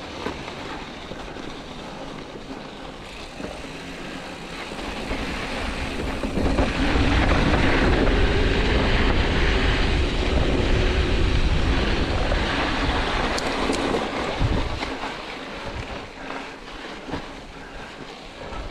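Mountain bike rolling over a rough, sandy and rocky dirt trail: tyre crunch and bike rattle mixed with wind buffeting the camera's microphone. It swells to a louder rumble and rush for several seconds in the middle as the bike picks up speed, then eases off.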